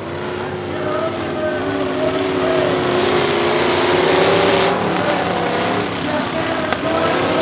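Pickup truck engines running under load as they tow boat trailers around a dirt track, several engine notes overlapping and climbing in level over the first few seconds. A single sharp knock comes near the end.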